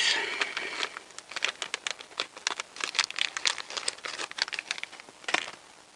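Thin clear plastic bag crinkling and crackling in the hands as it is opened and a small part is taken out, in quick irregular crackles with one louder crackle near the end.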